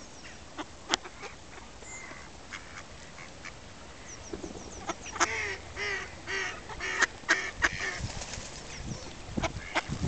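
Mallard ducks quacking, with a run of loud quacks between about four and a half and eight seconds in. A few sharp clicks are scattered throughout.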